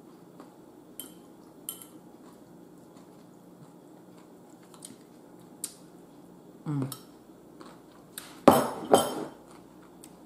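Fork and a small salad bowl clinking against the dishes: a few light taps, then two loud clatters close together near the end.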